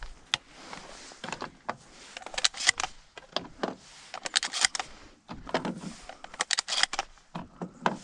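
Clicks, rattles and light knocks from gear being handled close to the microphone, in irregular clusters every couple of seconds.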